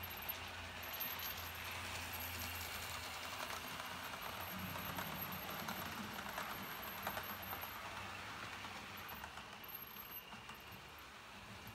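Model train coaches rolling past on the track, a steady rumble with a busy run of small metallic clicks from the wheels over rail joints. The sound fades near the end as the last coach passes out of view.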